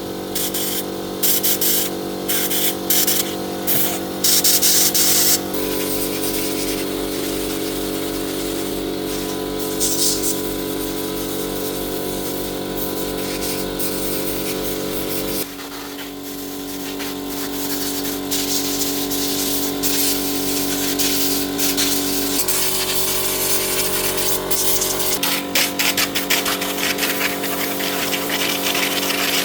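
Electric power tool motor running with a steady whine, its pitch shifting abruptly a few times, with choppy bursts of abrasive grinding or sanding noise near the start and again near the end.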